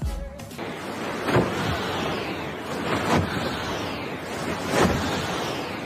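Wind rushing over the microphone in paragliding flight, swelling three times into louder whooshes at fairly even intervals.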